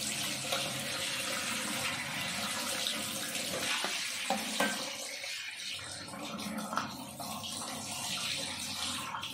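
Kitchen tap running in a steady stream onto a plastic food container held in a stainless-steel sink, splashing as the water hits the frozen box to loosen it. A few short plastic knocks come about four seconds in as the lid is worked off.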